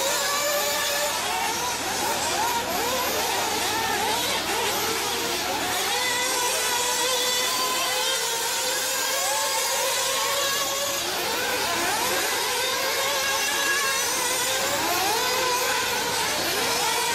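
Several 1/8-scale nitro RC buggies racing, their small two-stroke glow engines whining at a high pitch and revving up over and over, the engines overlapping one another.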